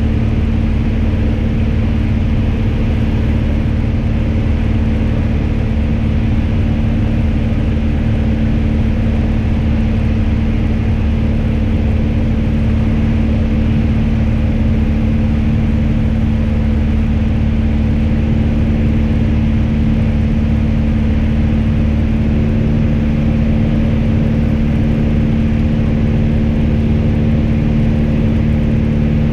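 Piper PA-28's piston engine and propeller running steadily in flight, heard inside the cabin as an even, unchanging drone.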